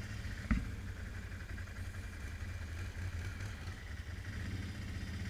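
ATV engines running at low speed, a steady low hum, with a single sharp knock about half a second in.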